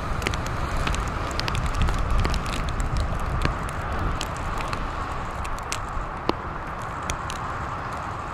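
Steady wash of breaking lake surf with wind rumbling on the microphone, plus scattered small clicks.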